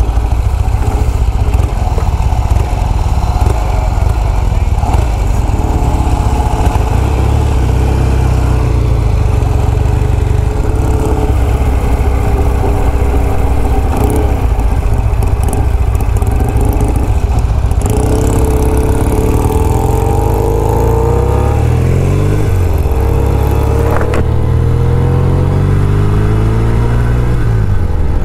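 Motorcycle engines running as the bikes pull away, then a motorcycle riding on the open road, its engine note rising several times near the end as it accelerates through the gears.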